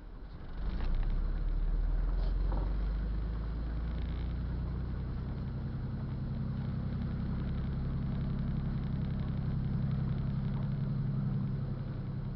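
Motor vehicle engine running with a low, steady hum that grows louder under a second in and then holds.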